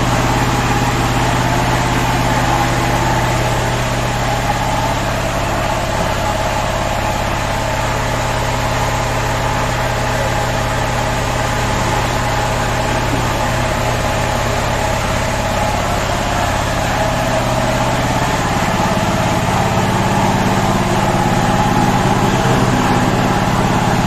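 A used three-phase hydraulic press's electric motor and hydraulic pump running steadily, a constant hum with a held whine; its low note shifts slightly about three-quarters of the way through.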